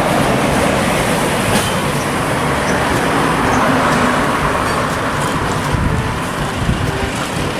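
Steady road traffic noise with a low engine rumble, as of a bus running in traffic.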